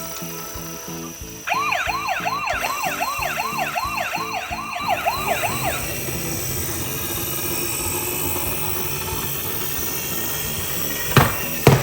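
Electronic ambulance siren in a fast yelp, sweeping up and down about three times a second for about four seconds, then stopping. Background music with a steady beat plays underneath, and two sharp clicks come near the end.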